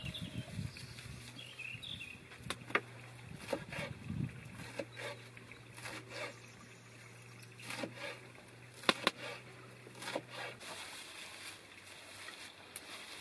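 A knife cutting a bunch of leafy greens on a wooden cutting board: irregular sharp knocks and taps of the blade on the board, with leaves rustling. A faint low drone runs underneath and stops about ten seconds in.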